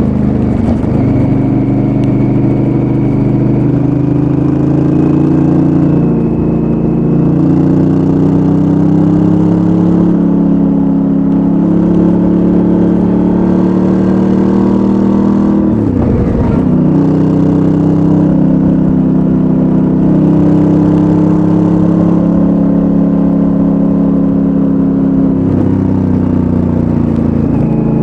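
Honda Africa Twin's 998 cc parallel-twin engine with its stock exhaust, ridden at steady throttle with the engine note shifting a little in pitch. About halfway through the note drops away and climbs back, as the throttle is rolled off and opened again.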